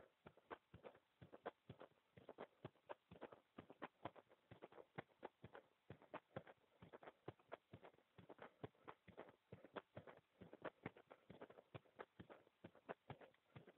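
Heartbeat picked up by a small microphone resting on a bare chest: a quick, uneven run of quiet clicks.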